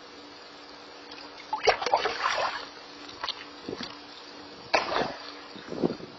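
Jack crevalle striking and thrashing at the surface right at the camera: a run of loud splashes about a second and a half in, then several shorter splashes. A faint steady hum runs underneath.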